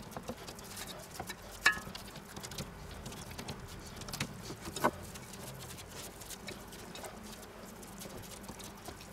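Gloved hands patting and pressing raw minced pork into silicone rib moulds: faint, soft squishing pats, with a few sharper taps between about one and a half and five seconds in.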